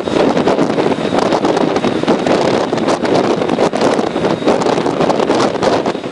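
Heavy wind buffeting the microphone: a loud, continuous rush with rapid gusty flutters.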